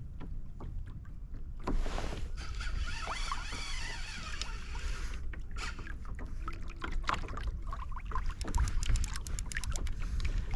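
Wind rumbling on the microphone and water moving against the kayak, with a fishing reel clicking rapidly for a second or two near the end while a hooked tope is played.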